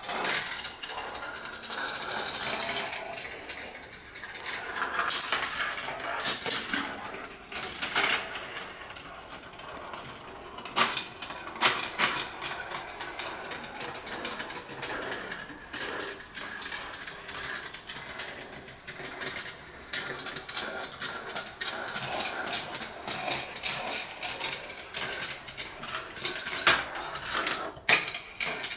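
Steel balls rolling and clattering through a GraviTrax plastic marble run: a continuous rattle of many small clicks, with louder clacks now and then as balls drop and strike track pieces.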